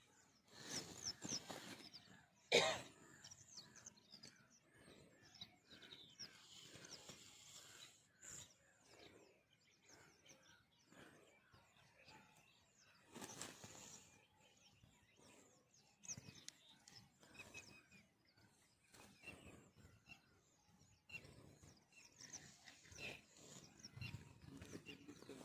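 Quiet field ambience with faint bird chirps, one sharp click between two and three seconds in, and a few brief rustling noises.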